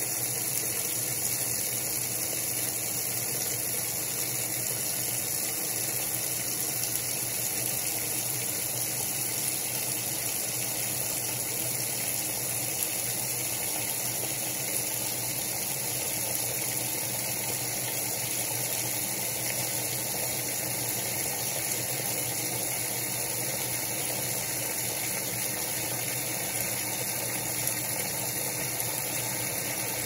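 Electrolux Top 8 top-loading washing machine running steadily: a constant motor hum with a hiss over it and no pauses.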